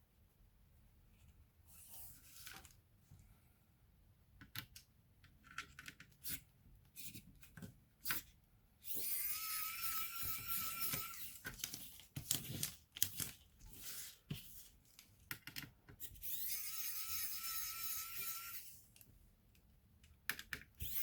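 Laptop parts being handled, with scattered sharp plastic clicks and taps, and twice a small motor-driven tool runs for about two seconds with a steady whine over a hiss.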